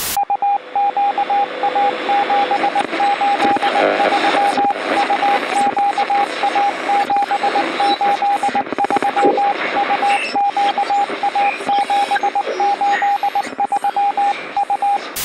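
Morse code beeps: a single steady tone keyed on and off in short and long pieces, over hissing, crackling radio static. A short sharp burst of static at the start and again at the end.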